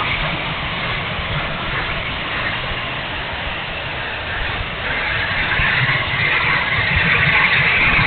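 The 70 mm electric ducted fan of an E-flite F-16 model jet running in flight, heard from a camera on the airframe as a steady rushing sound mixed with airflow noise. It eases off slightly in the middle and builds again near the end.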